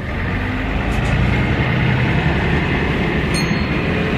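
City bus on the move between stops: steady engine and road rumble that swells about a second in as it gets under way.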